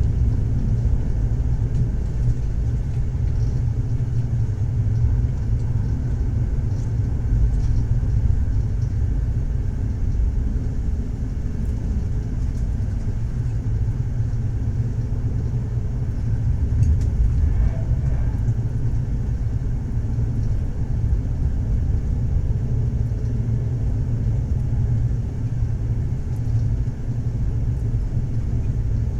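Moving train: a steady low rumble of the running train with no break.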